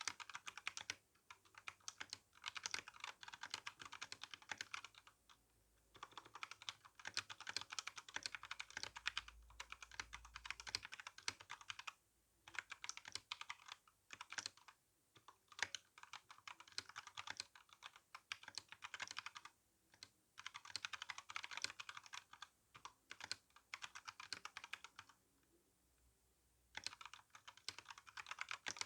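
Typing on an RK61 mechanical keyboard with tactile brown switches and GSA keycaps: quick runs of keystroke clacks broken by short pauses, with a longer pause near the end.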